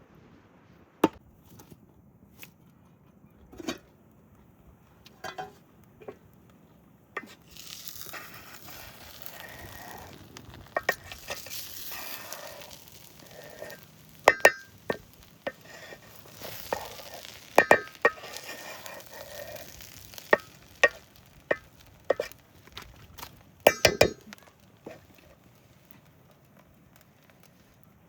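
Cooking-pot sounds: a metal utensil knocking and clinking sharply against a pot, several strikes ringing, over a hiss of food frying through the middle stretch.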